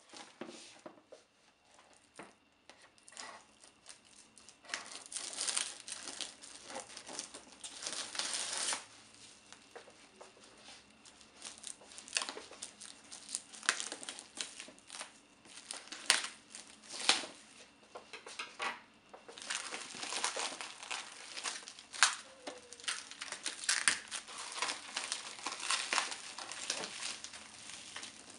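Black plastic wrap being torn and peeled off a cardboard box by hand: dense, irregular crinkling and crackling, louder in stretches.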